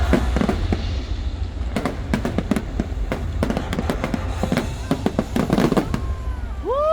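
Fireworks bursting in quick succession: a dense run of sharp bangs and crackles over a deep rumble, with the show's music underneath. Near the end a loud whistle sweeps up in pitch and holds.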